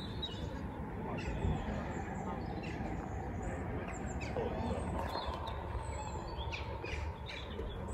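Outdoor ambience at height: wind rumbling on the microphone, with small birds chirping now and then.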